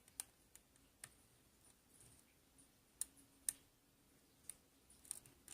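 Faint, irregular metallic clicks, about half a dozen, from a lock pick working the pins of a 5-pin Binco pin-tumbler padlock under tension while single-pin picking.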